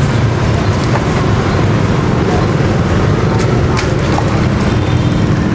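Steady rumble of street traffic, with a few sharp knocks of a cleaver on a wooden chopping block.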